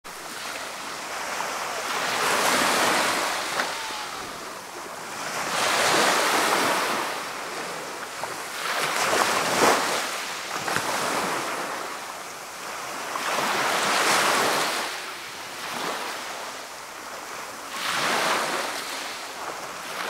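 Small sea waves breaking and washing up onto a gravelly beach. Each wave is a hiss that swells and fades, one every three to four seconds.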